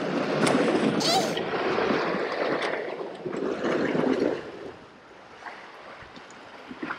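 Sea water splashing and gurgling, loudest for about the first four seconds and then dying down to a quieter wash.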